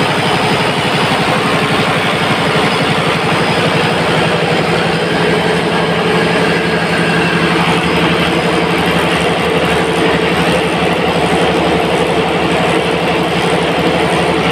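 Multi-cylinder diesel engine running steadily and loudly, with a rapid, even firing beat, on a twin-engine setup belted by V-belts to a single propeller shaft. Its tone thickens slightly about four to five seconds in.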